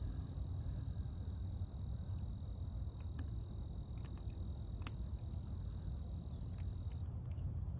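A steady, thin, high-pitched insect buzz that stops near the end, over a low rumble, with a few light clicks as garden netting is cut away.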